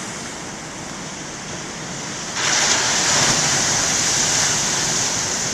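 Heavy ocean surf. About two seconds in a wave breaks and the hiss of rushing white water jumps up sharply and holds.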